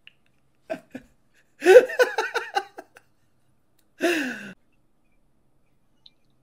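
A man laughing. A couple of short breaths come first, then a loud burst of rapid ha-ha laughter about a second and a half in, and a single falling 'aah' about four seconds in.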